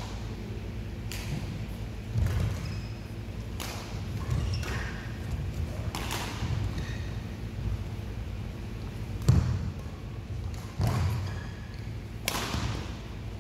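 Badminton rackets striking a shuttlecock and thudding footfalls on the court, irregular knocks about every second or so with echo in a large hall, the heaviest thud a little past the middle.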